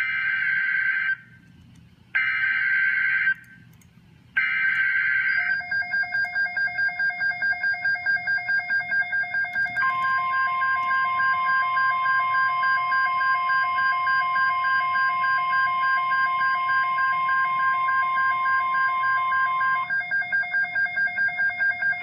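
NOAA Weather Radio emergency alert for a Winter Storm Watch: three short bursts of raspy SAME digital header data, then a steady, piercing warning alarm tone held for about ten seconds. A steady, pulsing electronic tone sounds beneath it from about five seconds in.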